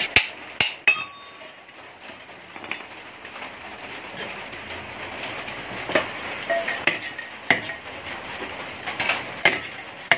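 Scattered sharp metallic clinks and knocks of a steel motorcycle muffler and tools being handled, several in the first second and more in the second half, over a steady background hiss.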